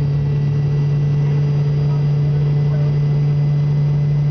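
Steady low hum of an airliner's engines and airflow heard inside the passenger cabin during the landing approach, one unchanging drone.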